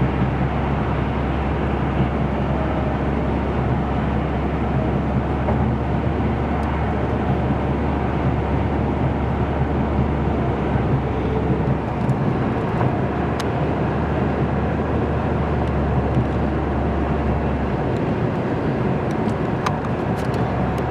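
Steady road and tyre noise of a car cruising on a highway, heard from inside the cabin, with a low drone underneath.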